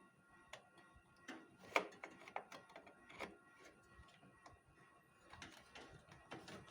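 Faint, irregular clicks and knocks of desktop computer parts being handled and fitted back together, with one sharper knock about two seconds in.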